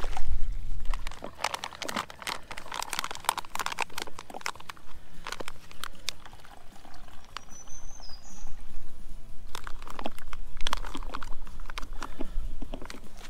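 Soft plastic pouch of a Sawyer Squeeze water filter crinkling and crackling as it is squeezed by hand in two spells, forcing pond water through the filter to trickle into a plastic bottle. A single short bird chirp comes between the two spells.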